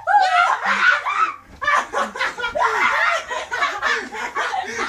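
People laughing loudly in quick, repeated bursts at the punchline of a knock-knock joke.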